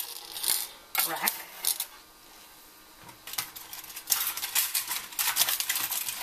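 Wire roasting rack clinking against a metal roasting pan as it is set down, a few sharp clinks, then a rapid rattle of clinks and scrapes from about three seconds in as it is shifted into place.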